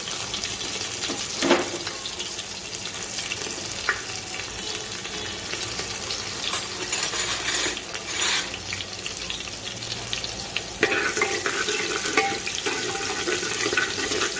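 Chopped onion frying in hot oil with cumin seeds in a pressure cooker: a steady sizzle that starts suddenly as the onion goes in, with a few knocks of the spoon. About eleven seconds in the sizzle grows louder and more crackly.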